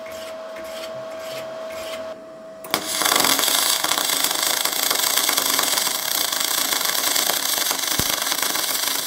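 A hand wire brush scrubbing an aluminium fillet joint in quick strokes, then, nearly three seconds in, an R-Tech spool-on MIG gun strikes an arc and welds the aluminium with a steady, loud crackling hiss.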